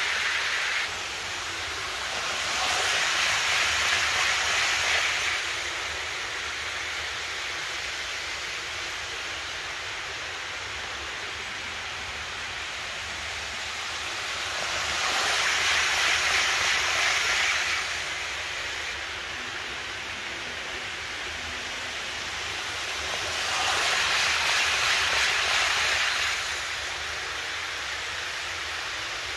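Model electric trains running on sectional track, a whirring, hissing rolling noise that swells three times as a train passes close by, each pass lasting about three seconds, over a steady hiss.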